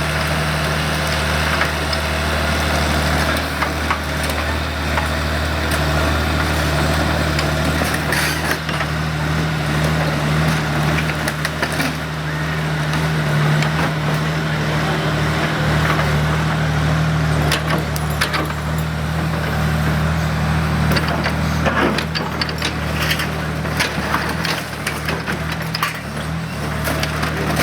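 O&K RH6 hydraulic excavator's diesel engine running steadily under load, with scattered sharp cracks and knocks that come more often from about eight seconds in.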